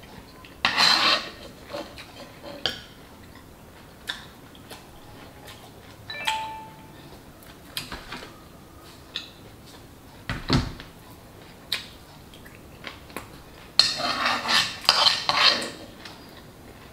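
Metal spoon scraping and clinking against a black frying pan as food is scooped up, in scattered short strokes with a longer run of scraping near the end. One dull thump about ten seconds in.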